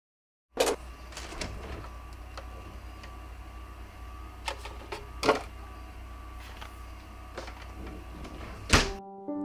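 Refrigerator with its door open: a steady low hum, with scattered knocks and clicks as a milk carton is taken from the door shelf. A loud thump near the end as the fridge door shuts.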